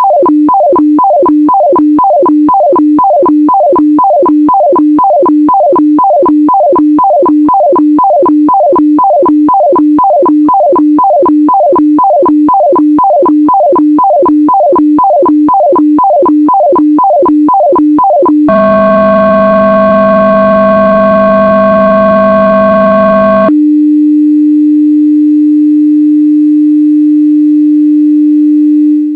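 HF radiofax (weather fax) signal as heard from a shortwave receiver: a warbling tone pattern repeating about twice a second, the line-by-line rhythm of the fax transmission. About 18 seconds in it switches to a harsher, buzzing multi-tone signal for about five seconds, then to a single steady low tone that begins to fade at the very end.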